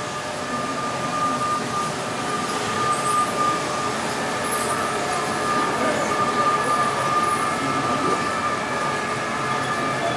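A model railway layout running: a steady high electric whine from the small train motors over the general noise of the exhibition hall, with faint high squeaks here and there.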